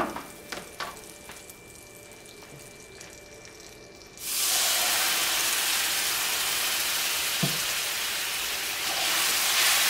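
Bourbon poured into a hot pan of melted butter and brown sugar: a faint sizzle with a few light clicks, then about four seconds in a sudden loud sizzle as the bourbon hits the hot sugar and butter. It keeps sizzling steadily as the glaze starts to reduce.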